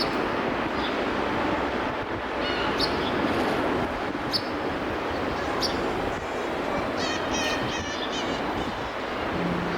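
Birds chirping in short single calls every second or two, then a quick run of chirps about seven seconds in, over a steady wash of distant city traffic noise.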